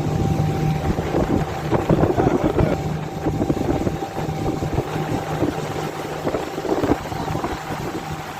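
A steady machine hum with a thin, faint whine, under irregular rustling and knocks.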